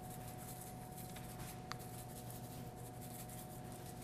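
Garlic salt shaken from a plastic shaker: a faint, scratchy patter of granules, with a steady low hum underneath and one small click a little before halfway.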